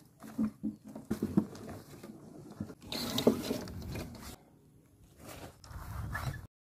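Handling noise of an acoustic guitar being taken out of a soft gig bag: irregular fabric rustling, scraping and light knocks, loudest about halfway through, cutting off abruptly near the end.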